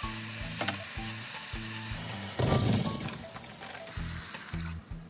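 Seasoned beef sizzling as it is stir-fried in a hot nonstick wok, with a brief louder burst about halfway through.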